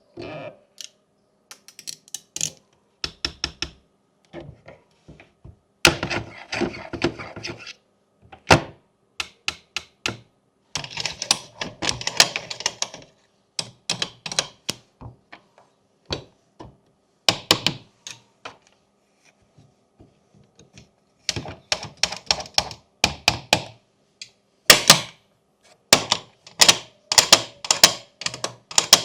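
Plastic fidget toys being clicked and tapped: runs of sharp clicks, some fast and rattling, with short pauses between them.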